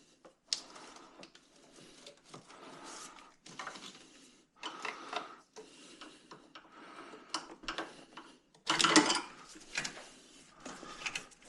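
Hands and tools working a power steering return line loose from a car's engine bay: scattered clicks, scrapes and rustles of hose and metal fittings, with a louder burst of handling noise about nine seconds in.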